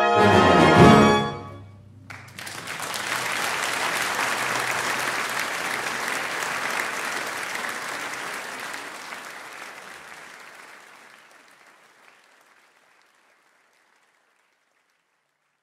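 Brass band sounding the final chord of a march, which stops about a second and a half in. The audience then breaks into applause, which fades away gradually over the next ten seconds.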